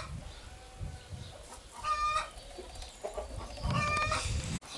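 Poultry calling: three short, even-pitched calls about two seconds apart.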